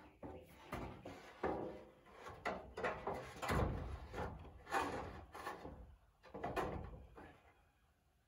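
A corrugated iron roofing sheet being slid and shifted by hand over the timber roof framing: a series of irregular scraping rasps and clunks, which die away about seven seconds in.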